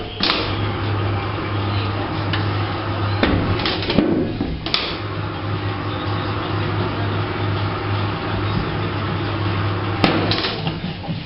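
Electric motor of a tyre-shop machine running with a steady hum for about ten seconds while the motorcycle wheel is turned, with a few sharp clicks, then winding down near the end.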